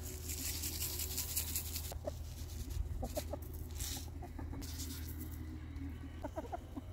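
Backyard hens clucking in short, scattered calls at feeding time, with bursts of rustling hiss in between.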